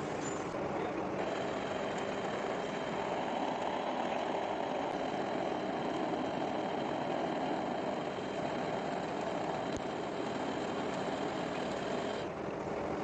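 Metal lathe running, its chuck spinning a turned gear blank, with a steady mechanical hum. A faint high steady whine comes in about a second in and stops near the end.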